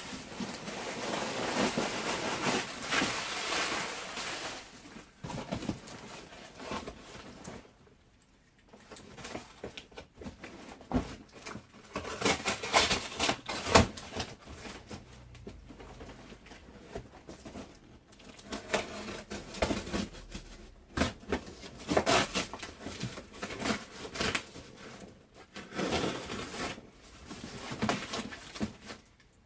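Packaging being handled while a boxed appliance is unpacked by hand: rustling and crinkling, with scattered sharp knocks and taps, and a brief lull about eight seconds in.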